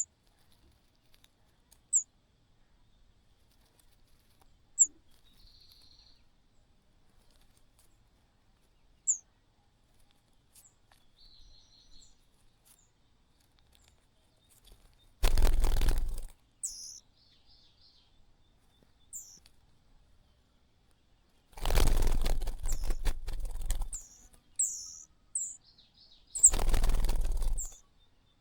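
Bird chicks in a nest: short, high, falling chirps every few seconds and a few faint buzzy notes. About halfway in, then twice more near the end, there are bursts of wing-flapping and rustling, the middle one about two seconds long, with quick chirps around them.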